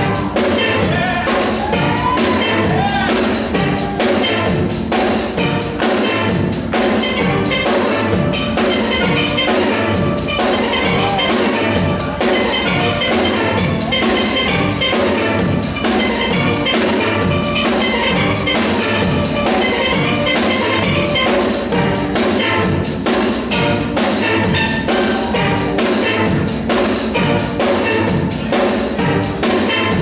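Live steel band playing: steel pans carry the melody over a drum kit keeping a steady beat.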